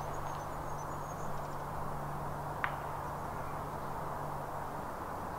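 Outdoor background: a steady low hum under a haze of wind-like noise, with a row of faint high chirps near the start and one short, sharp click about halfway through.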